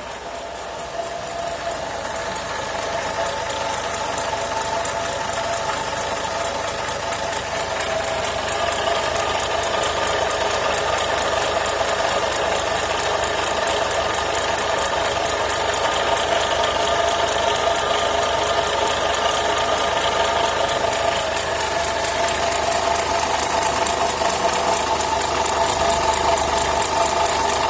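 Renault Logan engine running with extraneous noises that appeared after its alternator was repaired: a steady whine with a fast, even rattling tick over the engine note.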